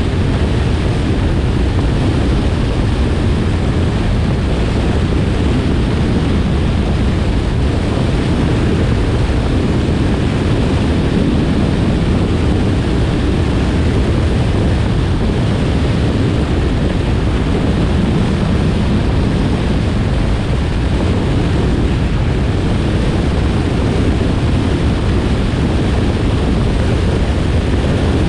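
Cessna 172's four-cylinder engine and propeller running steadily in flight on final approach, under a loud, even rush of airflow buffeting an outside-mounted camera microphone.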